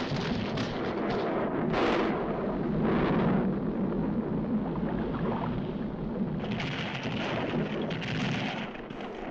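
Cartoon sound effects of a volcano erupting: a continuous deep rumble with several blasts that swell and fade. It grows brighter and noisier for a couple of seconds near the end.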